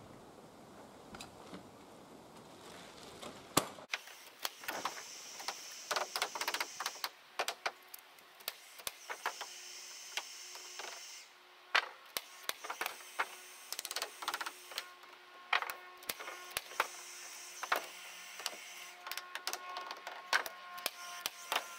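Irregular sharp clicks and knocks, with a few louder knocks, from hand carpentry work on the timber rafter feet: tools and timber being handled and set against the wood on scaffold boards.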